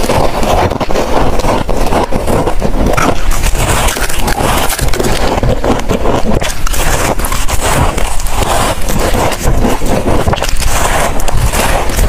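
Freezer frost being bitten and chewed: dense, continuous crisp crunching and crackling of powdery ice.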